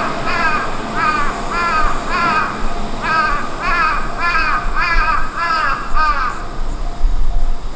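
A crow cawing over and over, about two caws a second, stopping about six seconds in.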